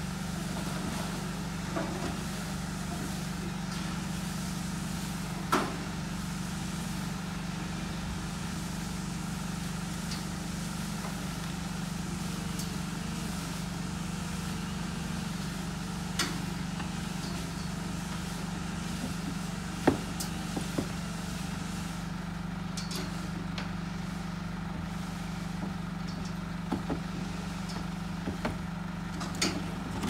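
Forklift engine idling with a steady low hum, with a few short sharp knocks now and then, the loudest about two thirds of the way through.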